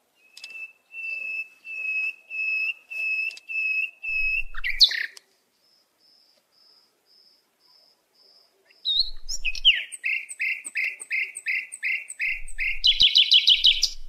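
A songbird singing. It gives a run of clear, even whistled notes at about two a second, then a faint string of very high peeps. Near the end come quicker down-slurred notes, about three a second, finishing in a fast trill.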